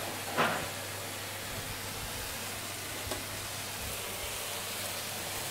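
Mushrooms frying in oil in a pan, giving a steady, quiet sizzle. A brief, louder sound comes about half a second in.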